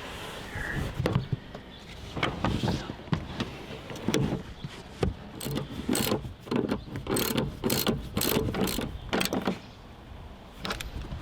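Socket ratchet being worked back and forth on the seat's center bolt, a quick burst of clicks on each back-stroke, about two a second through the middle of the stretch, after a few scattered knocks of the seat going into place.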